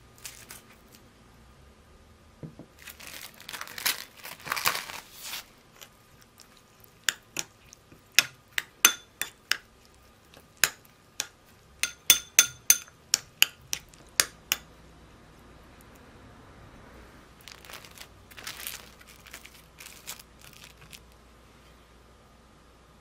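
Plastic cling wrap crinkles. Then a wooden spoon stirring chopped citrus peel in syrup clinks sharply and repeatedly against a small glass bowl, about twenty strikes over some seven seconds. The wrap crinkles again as it is pressed down onto the peel.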